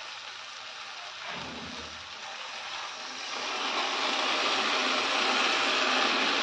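Water poured from a steel bowl into a hot kadhai of sautéed peas and fenugreek, splashing and hissing as it meets the oil; the sound grows louder about three seconds in and then holds steady.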